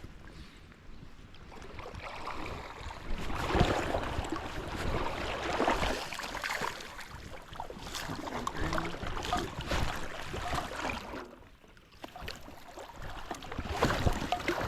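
Uneven rushing noise of wind on the microphone and high creek water, rising and falling in surges, with a brief lull about three-quarters of the way through.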